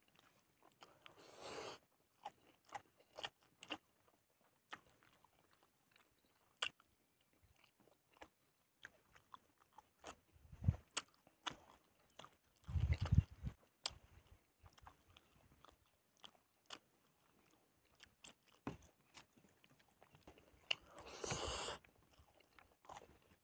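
Close-miked mouth sounds of a person eating rice and boiled fish by hand: chewing with small wet clicks and smacks. A louder thump comes about halfway through, and a short rushing noise near the end.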